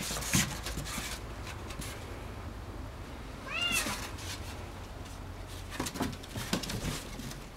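Domestic cat giving one short meow, rising then falling in pitch, about halfway through, with a few faint knocks around it.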